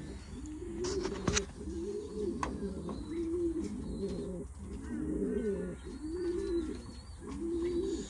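Racing pigeons cooing in the loft: a low, rolling coo repeated about once a second. A few sharp clicks come in the first couple of seconds.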